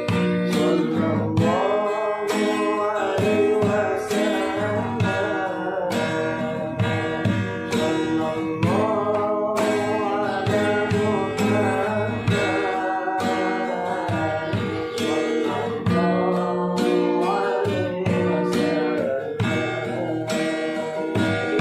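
A song with a melodic singing voice over acoustic guitar accompaniment, the guitar plucked and strummed.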